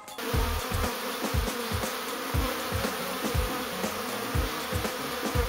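Many European honeybees buzzing as they fly around their nest entrance in a brick-wall weep hole: a steady, dense hum of wingbeats, with irregular low thumps underneath.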